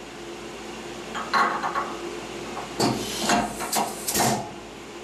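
A CAT40 taper tool holder being put back into a CNC vertical mill's spindle: several knocks and clunks of metal, a first cluster about a second and a half in and more from about three to four and a half seconds in.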